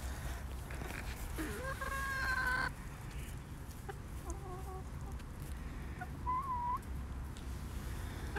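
Young chickens vocalizing: one long, drawn-out call begins about a second and a half in, followed by a few soft short chirps and a brief rising-and-falling call near the end.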